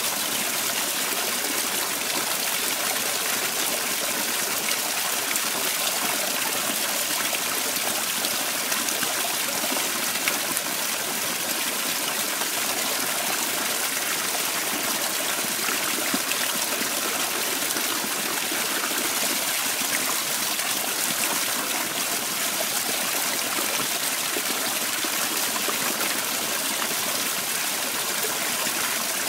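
Small rock waterfall splashing steadily into a pond.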